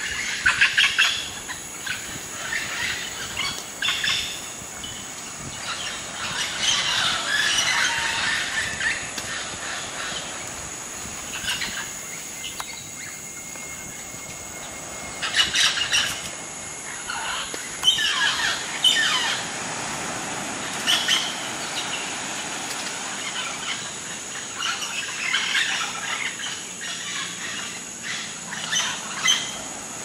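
Scarlet macaws calling in repeated bursts of short calls, with pauses of a few seconds between the bursts.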